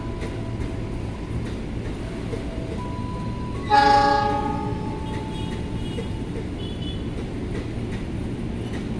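A train horn sounds one short, loud blast about four seconds in and fades over about a second. Under it runs the steady rumble of a long passenger train's coaches rolling through the station.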